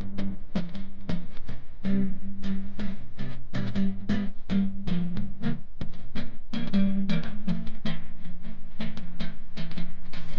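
Background instrumental music: plucked guitar over a steady, quick drum beat.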